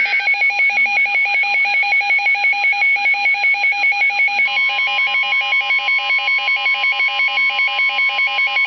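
Weather radio warning alert: rapid electronic beeps, about five a second, alternating between a low and a high tone. About halfway through, a steady single-pitch tone joins them, fitting the 1050 Hz NOAA Weather Radio warning alarm tone that comes before a new warning.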